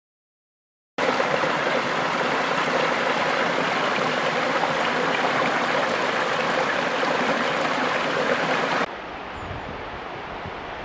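Steady rush of running water, like a stream, starting abruptly about a second in; near the end it cuts to a quieter, duller hiss.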